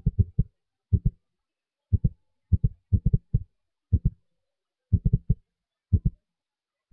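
Low, dull thumps in quick clusters of two to five, coming about once a second.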